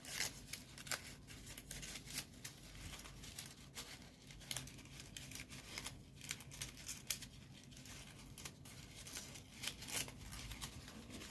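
Folded paper origami units being handled and slotted into a kusudama model: scattered soft paper rustles and small crisp clicks throughout.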